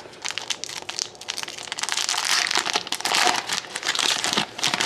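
A hockey card pack's wrapper being torn open and crinkled in the hands: a dense, continuous crackling that is strongest in the middle and again near the end.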